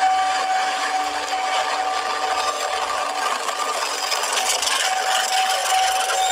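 Motorised block-built toy train running over gritty dirt: a steady motor whine over a rough rubbing noise from the wheels.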